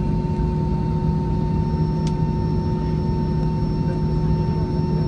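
Cabin noise inside an Airbus A320-214 taxiing after landing: the engines' steady hum and rumble, with a few steady tones over it.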